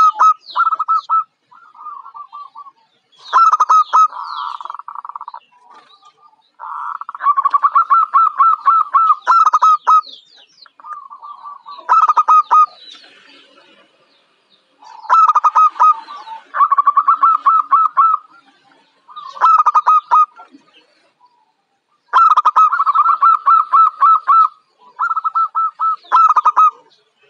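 Zebra dove (perkutut) cooing: phrases of quick, clipped, repeated coo notes at a steady pitch, each phrase lasting one to three seconds, coming again and again with short pauses between.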